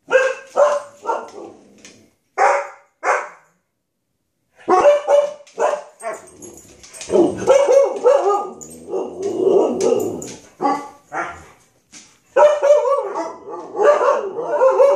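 Siberian huskies barking at helium birthday balloons: a few short sharp barks, a pause, then long runs of drawn-out, wavering bark-howls.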